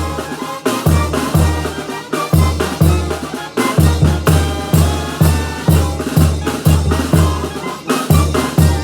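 A Sinaloan banda plays live. Low tuba notes and drums keep a steady beat about twice a second under the brass.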